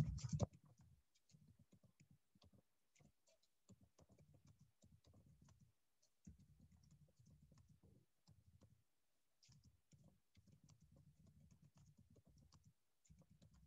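Faint computer keyboard typing: a long, irregular run of light key clicks.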